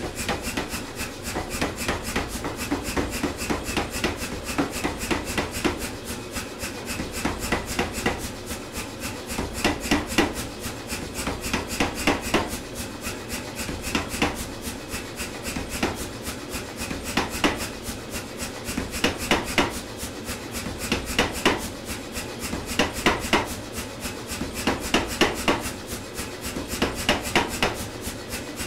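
Say Mak power hammer striking a hot 1-inch round steel bar in rapid, evenly spaced blows as one end is drawn out into a taper. Harder blows come in bunches about every two seconds.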